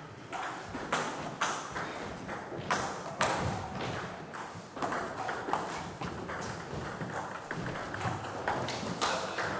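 Table tennis ball clicking off bats and the table, many sharp clicks at an uneven pace.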